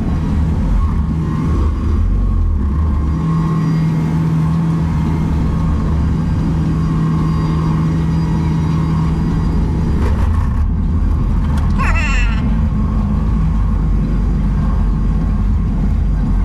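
Bobcat T770 skid steer's diesel engine running steadily under load, heard from inside the cab, with a steady drone that holds for several seconds. A brief high squeal about three-quarters of the way through.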